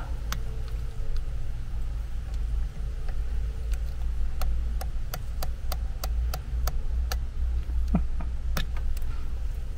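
Lock pick working the pins inside a Kwikset doorknob's keyway during single-pin picking: a lot of light, irregular clicks, busiest in the middle, which are the pins rubbing on the inside rather than pins setting. A steady low hum runs beneath.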